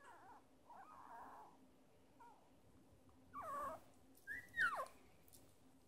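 Newborn Shiba Inu puppy making a string of short squeaks and whimpers. The last two are louder, and the final one is a squeal that falls in pitch.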